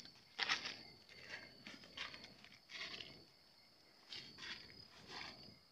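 Footsteps, about seven irregular steps, over a steady high-pitched trill of insects at night.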